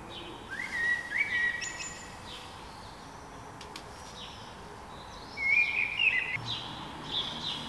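Songbirds singing: two whistled phrases, one about half a second in and one about five and a half seconds in, with short high chirps in between, over steady background hiss.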